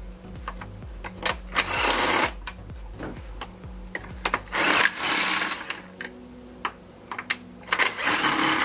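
Cordless driver with a 12 mm socket whirring in three short bursts as it spins loose the intake manifold's bolts and nuts, with light metallic clicks of the socket and tools between the bursts.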